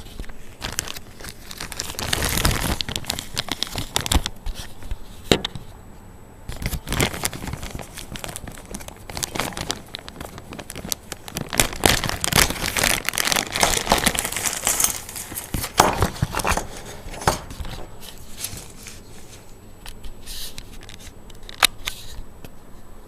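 Plastic packaging crinkling and tearing in irregular bursts as kit parts are unwrapped by hand, with a few sharp clicks.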